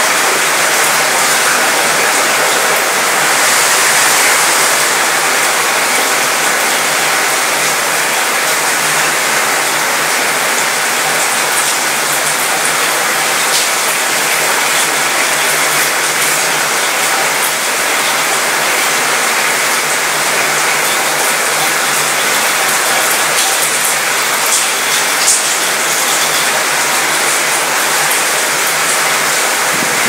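Light rain shower falling on a cruise ship's mostly metal balcony and railing: a steady, dense rain noise with the odd sharp tick of a single drop, the sound rattling around the metal. A low steady hum runs underneath.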